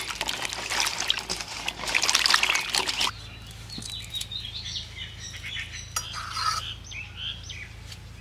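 Hands swishing okra pods in a steel bowl of water, splashing and dripping for about three seconds, then cutting off suddenly. After that, birds chirp faintly here and there.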